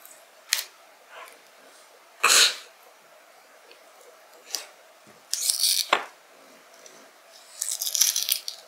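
Dry, papery onion skin crackling as it is picked and peeled off a halved onion by hand, in several short bursts, the longest a little past the middle and near the end. One louder rush of noise comes about two seconds in.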